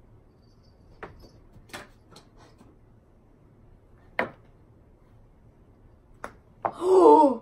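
Playing cards being thrown, heard as a series of short sharp taps and flicks, the loudest about four seconds in. Near the end comes a loud vocal sound that falls in pitch, like a groan.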